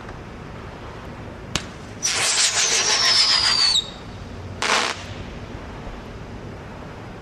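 Roman candle firing one shot: a sharp pop as the star is launched, then a loud whistle lasting about two seconds that falls slightly in pitch, and a brief burst of crackle about a second later.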